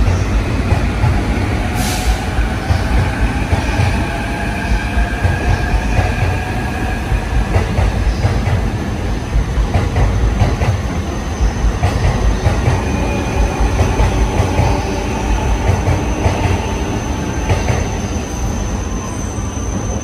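A JR East E531 series electric train runs slowly along the platform as it pulls into the station, its wheels giving a loud, steady rumble. High squealing tones from the wheels on the rails float over the rumble, and a thin high tone comes in during the second half.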